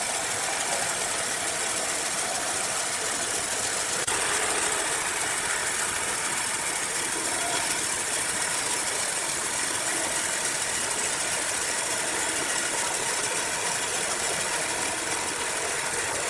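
Sawmill machinery running: a steady, even noise with much hiss and no change in pitch.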